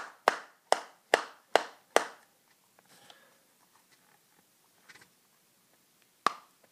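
A tin of Skoal Extra wintergreen long cut dipping tobacco being packed: about six sharp, evenly spaced taps, roughly two and a half a second, over the first two seconds. Then faint handling, and a single sharp click near the end.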